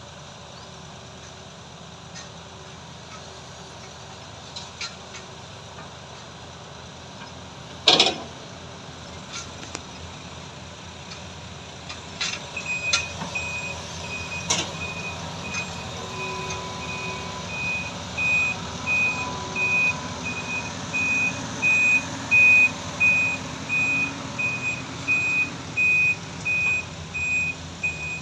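Heavy diesel machinery running, with a single loud knock about eight seconds in. From about twelve seconds a truck's reversing alarm sounds, steady beeps about two a second that grow louder as a dump truck backs in beside the excavator.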